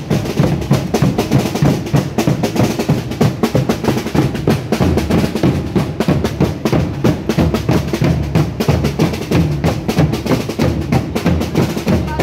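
Street carnival percussion band playing: large rope-tuned bass drums and snare drums beating a fast, steady, driving rhythm.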